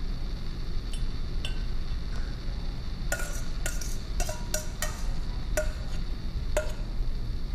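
Metal kitchen tongs clinking against a stainless steel mixing bowl as dressed salad greens are lifted out onto a plate. It is a string of light metallic clinks, most of them between about three and seven seconds in, over a steady low hum.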